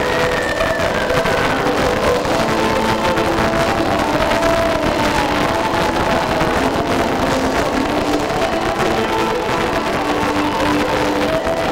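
Heavy metal band playing live at full volume: electric guitars play a melody of held notes that step from pitch to pitch, over bass guitar and drums.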